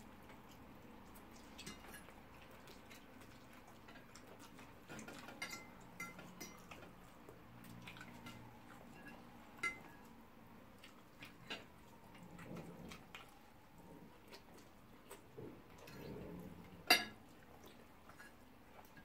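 A metal fork clinking and scraping now and then against a ceramic dinner plate while people eat, with soft chewing and mouth sounds between the clinks. One sharper, louder clink comes near the end.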